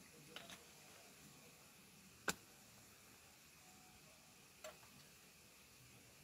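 Near silence with a few faint clicks and one sharp click a little over two seconds in.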